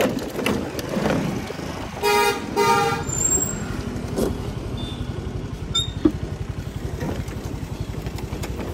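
Vespa scooter's single-cylinder engine idling steadily, with two short horn toots about two seconds in and a sharp click about six seconds in.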